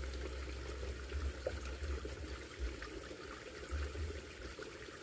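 Small shallow stream trickling steadily, with intermittent low rumbles on the microphone.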